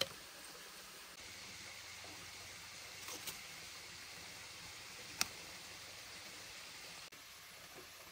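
A few sharp clicks and knocks from a wooden spoon and a green bamboo tube being handled, one right at the start, two close together about three seconds in and the loudest about five seconds in, over a faint steady hiss.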